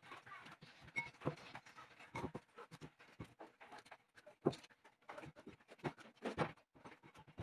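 Faint, irregular soft scuffs and light taps of hands kneading a ball of dough in a ceramic bowl.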